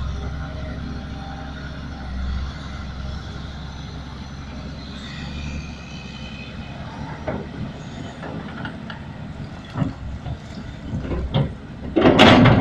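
Caterpillar 325D tracked excavator's diesel engine and hydraulics running steadily while it works. From about seven seconds in there are several short knocks, and near the end a loud burst of noise as the bucket digs into the soil heap.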